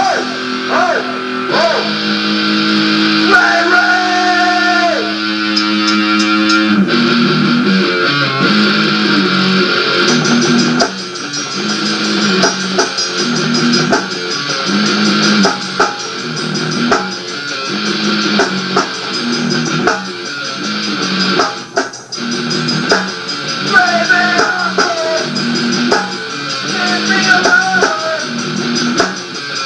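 Guitar-driven rock music from a band's demo recording. Held guitar chords ring for the first several seconds, then a steady repeating riff with drums starts about seven seconds in, with bent, wavering lead notes in places.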